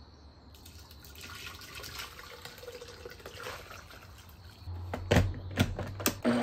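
Thick tomato-chipotle cooking sauce with onions poured from a slow cooker's crock into a blender jar, sloshing and gurgling. Near the end, a few sharp knocks as the full jar is set onto the blender base.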